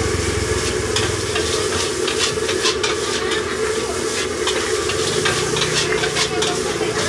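Nasi goreng sizzling in a wok while a metal spatula stirs it, scraping and clanking against the pan many times at an irregular pace, over a steady hum.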